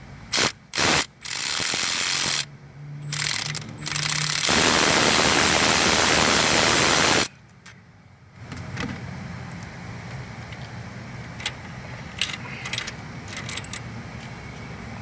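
Pneumatic shop tool running in bursts: a few short blasts, a run with a low hum, then a loud steady hiss for about three seconds that cuts off suddenly. Small metallic clicks from handling parts follow.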